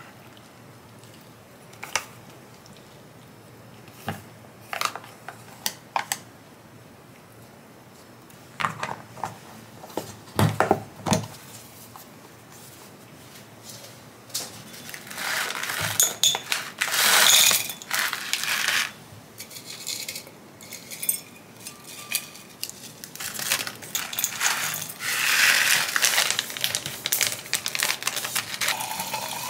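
Kitchen handling sounds: scattered light clinks and knocks of dishes and utensils, then two longer stretches of hissing, rustling noise in the second half.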